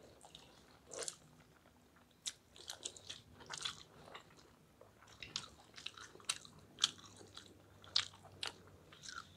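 Close-miked eating sounds: chewing, lip smacks and irregular sharp mouth clicks from people eating rice and egg curry by hand, with fingers mixing rice on steel plates.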